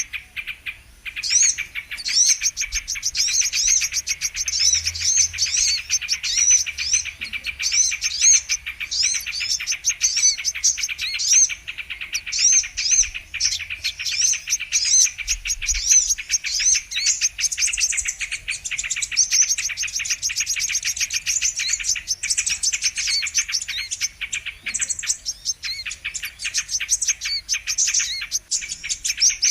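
Brown-throated sunbird (kolibri kelapa) song: a fast, almost unbroken twittering of high, overlapping chirps and short trills.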